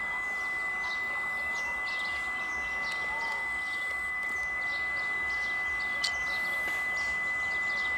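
Railway platform ambience: a murmur of waiting passengers and birds chirping, over a steady high-pitched whine, with an approaching electric multiple unit train faint underneath. A single sharp click about six seconds in.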